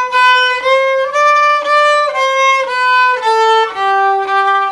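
Solo violin playing a slow melody in separate bowed notes of about half a second each. The line edges upward at first, then steps lower in the second half.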